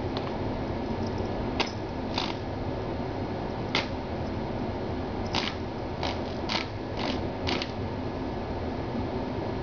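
Small electric desk fan running with a steady whir, with about eight sharp, irregularly spaced clicks as a kitten paws and taps at its plastic body.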